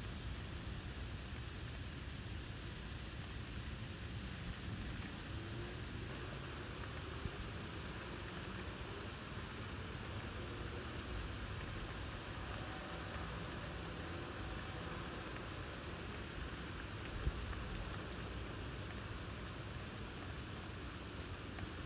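Steady rain falling, an even hiss, with one brief sharp click about seventeen seconds in.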